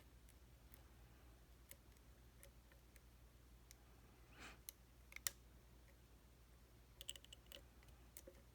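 Faint, scattered clicks of a lock pick and tension wrench working inside a challenge lock, with a louder cluster a little past the middle and a quick run of clicks near the end. A low steady hum runs underneath.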